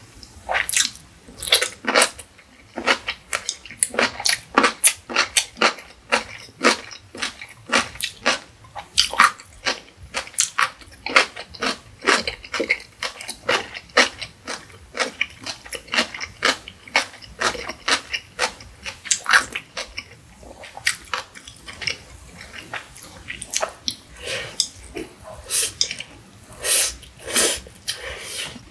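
Close-miked eating sounds: quick crisp crunching and chewing of cucumber kimchi, then the chewing of a mouthful of stir-fried instant noodles.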